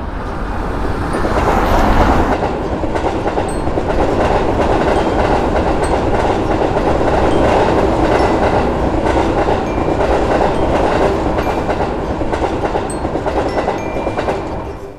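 A train running past on the rails, a steady rumble with the clickety-clack of its wheels, loudest about two seconds in.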